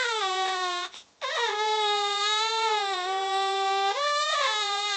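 A young child crying loudly in long, drawn-out wails, with a brief gasp for breath about a second in; the long wail that follows rises sharply in pitch about four seconds in and drops back.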